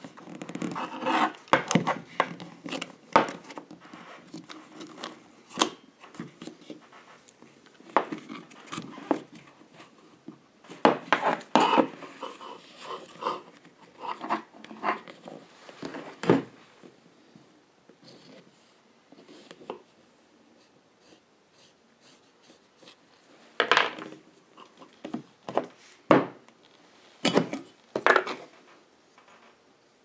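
Hands rubbing, folding and pressing glued leather onto a plastic seat-belt buckle: irregular rustling and scraping with scattered small clicks, and a few louder knocks near the end.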